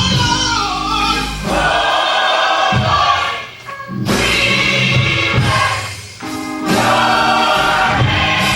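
Gospel choir singing with musical accompaniment, with two brief drops in level between phrases, one about three and a half seconds in and one about six seconds in.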